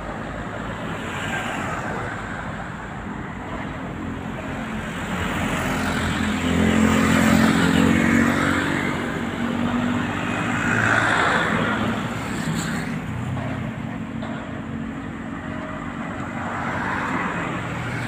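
Road traffic: motor vehicles, including a truck and an SUV, driving past one after another on a city road, each swelling and fading, with a low engine hum.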